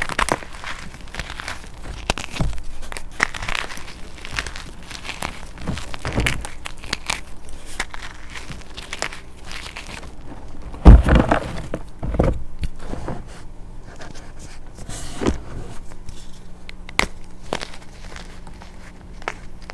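Crunchy chalk crunching and crumbling as it is crushed by hand, in irregular crackles with a loudest crunch about eleven seconds in.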